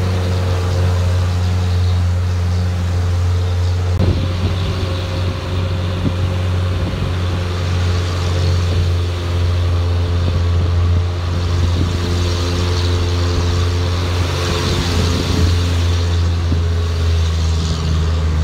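A motor vehicle's engine running steadily under way, heard from aboard: a constant low drone with a steady rushing noise over it. A single knock about four seconds in.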